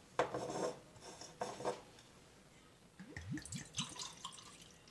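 Soy sauce poured from its bottle into a plastic measuring cup, about three seconds in: a few glugs rising in pitch as the cup fills. Before the pour, two short clatters of the cup and bottle being handled.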